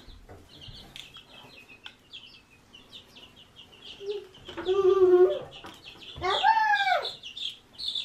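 Baby chicks peeping, a stream of short, high peeps several a second, as they are picked up by hand. A person's voice makes two brief, louder sounds, one about halfway through and one a second or so later.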